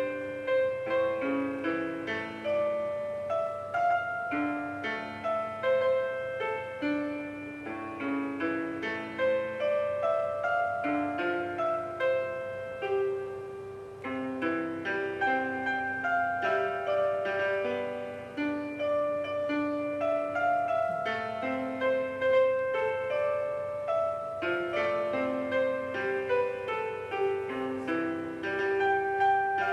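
Silicone roll-up electronic piano playing a piano voice through its built-in speaker: a continuous melody over lower accompanying notes, with no breaks.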